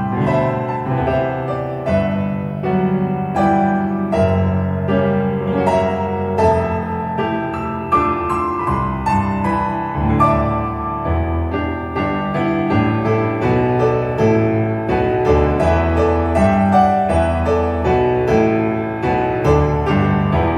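Solo piano music playing through a pair of Dali Menuet bookshelf speakers driven by a NAD 304 amplifier, heard in the room: a flowing run of notes over a sustained bass line.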